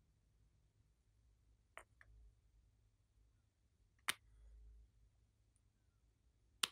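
Near silence broken by three short, sharp clicks, a couple of seconds apart, the last two the loudest: a nail polish bottle and its brush cap knocking together as the brush is dipped and drawn out.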